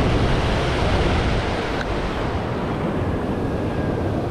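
Surf washing in over a rocky shore in a steady wash of foam, with wind rumbling on the microphone.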